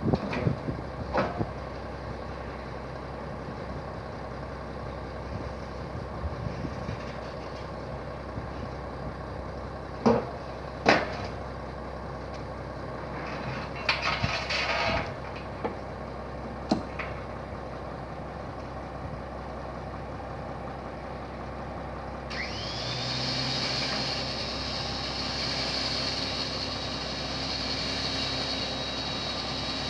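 Aluminium loading ramps clanking as they are set against a coach's rear garage: a few sharp knocks at the start, then a cluster between about 10 and 17 seconds, over a steady low hum. About 22 seconds in, a motor starts with a rising whine and keeps running steadily.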